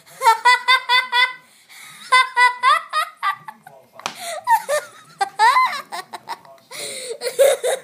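A young boy laughing hard after a joke, in bursts of rapid high-pitched 'ha-ha' pulses with short breaks between them.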